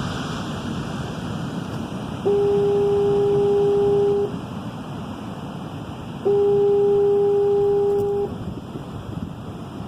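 Foghorn sounding two steady, single-pitch blasts of about two seconds each, four seconds apart, over the constant rush of wind and breaking surf.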